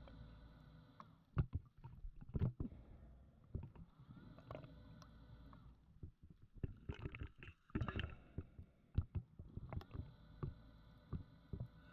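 Scuba regulator breathing heard underwater: a steady whistling tone on each inhalation, alternating with clusters of crackling exhaust bubbles and knocks.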